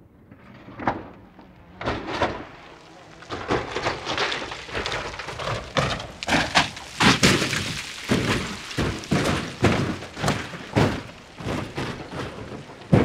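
A roll-caged car tumbling down a rocky slope: a long, irregular run of crashing impacts, thuds and breaking noises, heaviest around the middle, with one sharp heavy crash near the end.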